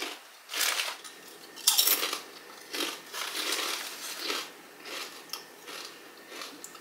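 Kettle-cooked potato chips crunched while chewing, in a string of irregular crisp bursts, with the chip bag rustling as a hand reaches in.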